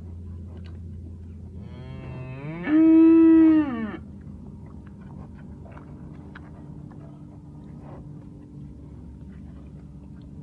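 A cow mooing once, a call of about two seconds that rises in pitch, holds, then drops off at the end. A steady low hum and faint scattered clicks sit underneath.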